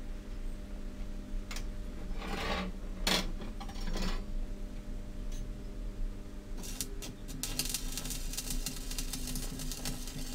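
Wrought-iron scroll pieces knocked and shifted on a steel welding table, a few separate clanks and scrapes, then an electric arc welder crackling steadily from about seven seconds in as a tack weld is laid. A steady low hum runs underneath.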